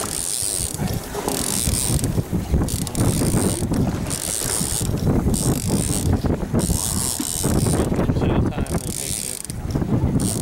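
Conventional boat reel being cranked against a heavy halibut on the line, its gears clicking in spells about a second apart. A steady low rumble of wind and water runs underneath.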